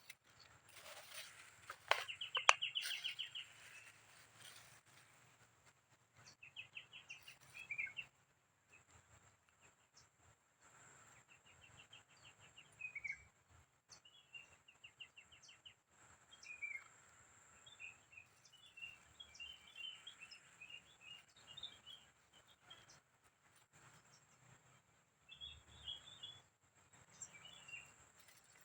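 Small birds chirping in short, rapid trills that recur every few seconds, over a steady high-pitched hiss. A few sharp clicks come about two seconds in.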